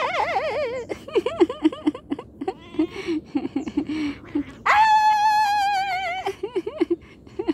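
Ginger-and-white cat meowing: a long wavering meow that fades about a second in, a run of short low chirping mews, then one long, loud, steady meow for about a second and a half past the middle.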